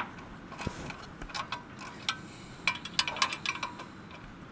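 Ratchet and socket clicking and clinking against metal in irregular short runs as the bolts of a new clutch pressure plate are tightened onto the flywheel.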